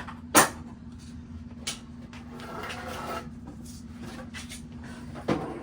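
Objects being handled in a small cluttered room: a sharp knock shortly after the start, scattered clicks and rustling, and another knock near the end, over a steady low hum.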